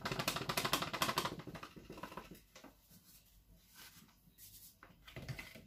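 Paper flour bag rustling and being shaken over a mixing bowl as flour is tipped in, a quick pattering rustle for about the first two seconds. After that come quieter, scattered handling noises.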